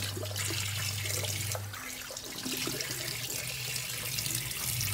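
Kitchen tap running into a sink while hands rub and rinse short mackerel under the stream, washing off tapioca starch. A low steady hum underneath drops out about two seconds in and comes back near the end.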